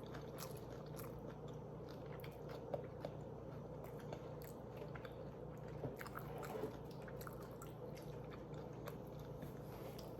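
Close-miked chewing: small mouth clicks and smacks of someone eating, with a few sharper bites about three and six seconds in.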